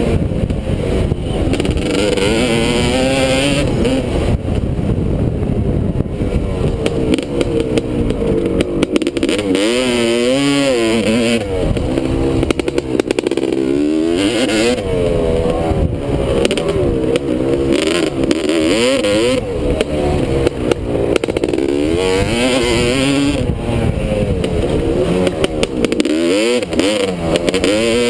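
Honda motocross bike's engine revving up and dropping back over and over as the rider accelerates, shifts and slows, heard from the rider's helmet with wind buffeting the microphone.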